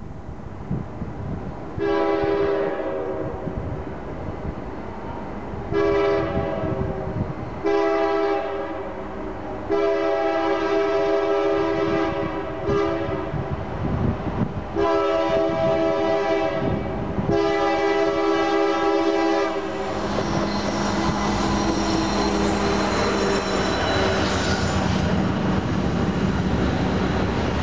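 Diesel freight locomotive's air horn sounding six blasts for a grade crossing, each a chord of several notes, the fourth one longest. About twenty seconds in the locomotives pass close by with their diesel engines running, followed by covered hopper cars rolling over the rails.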